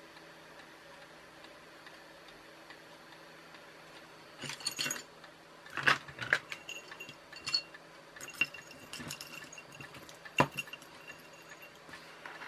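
Scattered small clicks and taps of hands handling a small circuit board, wires and parts on a desk. They start about four seconds in after a quiet stretch with a faint steady hum, and the two sharpest come about six and ten seconds in.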